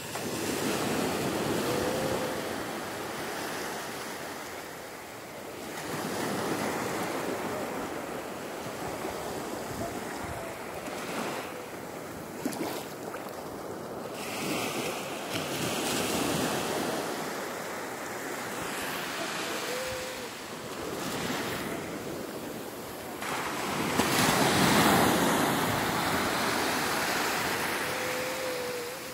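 Small waves breaking at the shoreline and washing up over wet sand, the surf swelling and fading in several surges, loudest about three-quarters of the way through.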